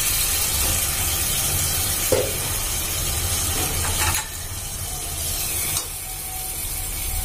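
Onion-tomato masala frying in oil in an aluminium pressure-cooker pan, a steady loud sizzle once the lid is off; the masala has reached the stage where it releases its oil. A single metal clink comes about two seconds in, the sizzle drops at about four seconds, and a steel spoon stirs the masala near the end.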